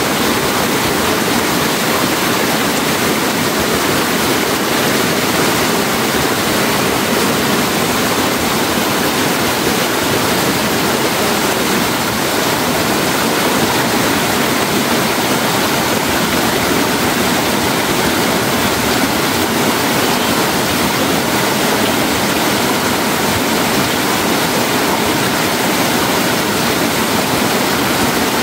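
Steady rushing of running water, an even noise that holds at the same level with no breaks.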